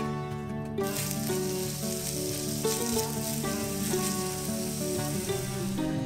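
Chopped onions sizzling in hot vegetable oil in a frying pan as they are stirred with a spatula; the sizzling sets in about a second in and stays steady.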